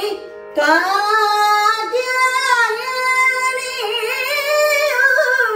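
A woman singing Carnatic music in raga Pantuvarali, holding long ornamented notes that slide and waver in pitch, over a steady drone. She pauses briefly for breath about half a second in.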